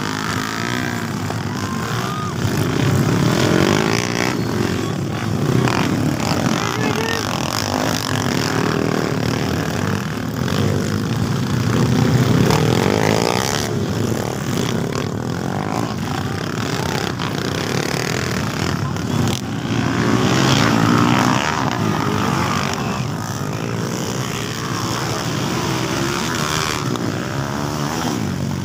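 Several dirt bike engines revving through a race, their pitch rising and falling as they accelerate out of corners. The sound swells louder several times as riders pass close by.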